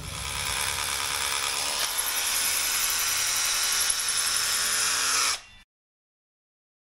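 Cordless hammer drill boring into an old brick wall, running steadily and cutting off suddenly about five seconds in.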